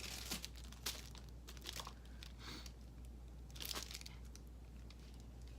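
Packaging crinkling and rustling as it is handled, in scattered short crackles.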